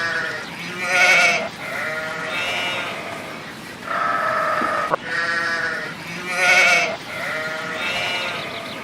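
Farm animal bleating: a run of wavering calls, each under a second long, one after another, the same run of calls coming round again about halfway through.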